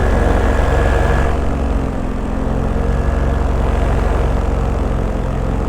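Paramotor engine and propeller running steadily in flight, easing slightly about two seconds in.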